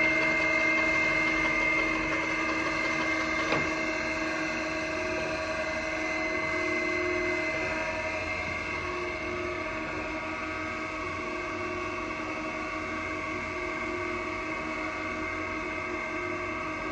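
Brown and Sharpe 618 surface grinder running: a steady motor and spindle whine with several held tones over a low hum, and a single click about three and a half seconds in.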